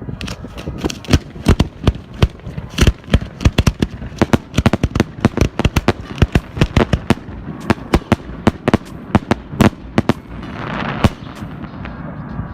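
Display fireworks going off in a rapid barrage: many sharp bangs, several a second, with a hissing crackle near the end.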